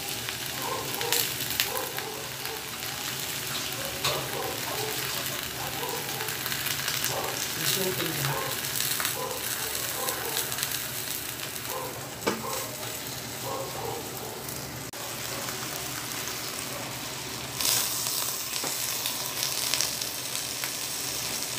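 Steady sizzling and crackling of food cooking over high heat, briefly louder near the end.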